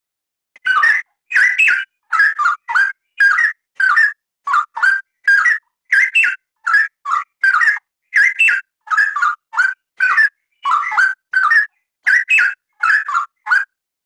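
Straw-headed bulbul singing a long, rapid run of loud, liquid whistled notes, about two a second, starting about half a second in and stopping near the end.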